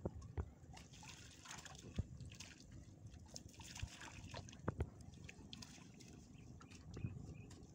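Water sloshing, trickling and dripping as a net fish trap is lifted and shaken by hand in waist-deep water, with a few sharp splashes.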